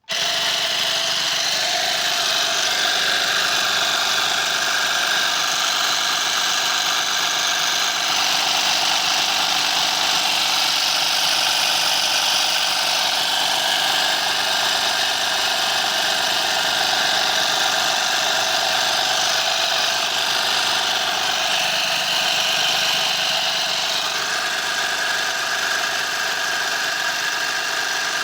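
Homemade engine-sound maker running with both wheels: a piece of metal is struck by the nails set around two spinning wheels, making a steady, rapid, dense clatter meant to imitate a V8.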